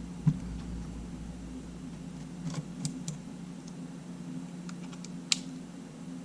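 A few sharp clicks from the Sony A7's buttons being pressed, one near the start, a cluster about half way and one near the end, over a steady low hum.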